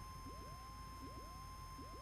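Faint electrical interference in the cockpit audio feed: a steady thin high tone, with pairs of faint falling chirps repeating about every three-quarters of a second. The aircraft engine itself is not audible.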